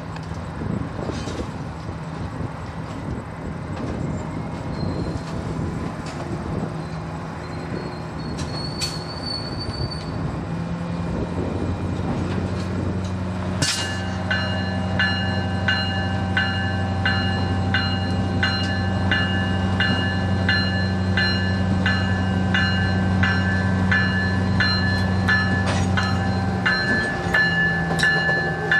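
Railpower diesel genset locomotive running, its engine drone building about a third of the way in. About halfway through its bell starts ringing steadily, somewhat under two strikes a second.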